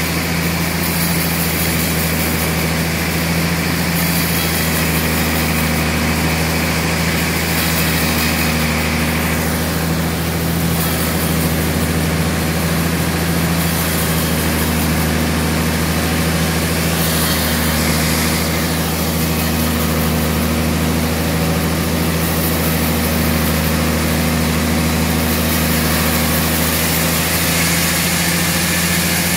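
A large vertical band sawmill (Hai Tai Iron Works) runs with a steady, loud motor hum while its blade saws lengthwise through a thick tamarind log fed on the carriage.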